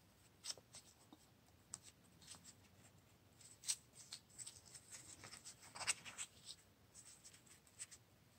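Brown paper-bag material crinkling and rustling faintly as fingers twist and scrunch it, in scattered short crackles with the loudest cluster about six seconds in.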